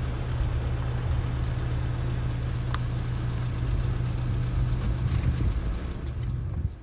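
A vehicle engine idling steadily with a low hum, stopping suddenly near the end.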